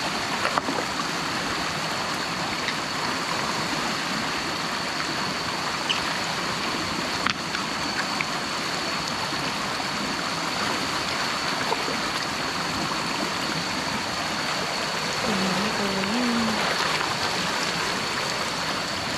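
Stream water flowing steadily, with a thin steady high tone running above it and a couple of sharp clicks.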